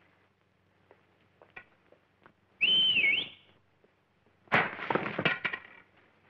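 A man's loud two-finger whistle, one shrill note that dips and then rises, lasting about a second. About two seconds later comes a loud burst of clattering and knocking noise.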